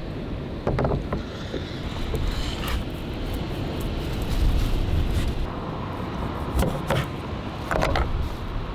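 Steady low rumble of road traffic and wind, with a few short knocks and taps from food prep on a plastic cutting board, clustered near the start and again near the end.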